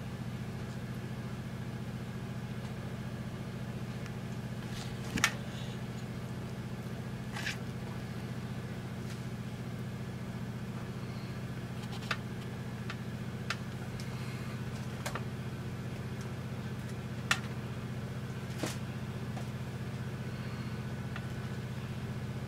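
A steady low hum with a handful of short sharp clicks and taps scattered through it, from a silicone mold being handled on a metal baking tray while set Jell-O is pressed out of it.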